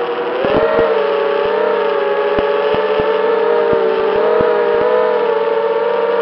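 FPV racing quadcopter's motors and propellers whining in flight: a cluster of close tones whose pitch wavers slightly with throttle, dipping and recovering about half a second in. Scattered short low thumps sound under the whine.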